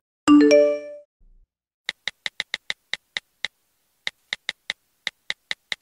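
A short chime with a few bright notes that fades within about a second, then a run of quick, high electronic clicks, about five a second, in three bursts with short gaps. This is a title-card transition sound effect.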